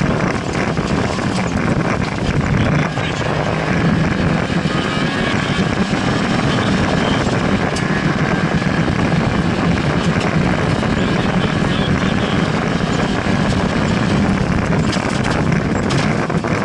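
Fiat Cinquecento rally car's engine running hard through a stage, heard from inside the cabin, its pitch rising and falling as the driver accelerates, lifts and changes gear, over continuous road and cabin noise.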